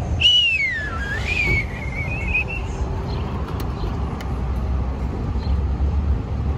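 A long whistle: one tone that falls steeply, then rises again and wavers before stopping, about two and a half seconds in all, over a steady low rumble.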